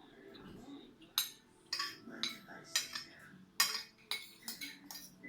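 Metal cutlery clinking and scraping against a plate while eating: a string of sharp clinks, roughly one every half second, starting about a second in.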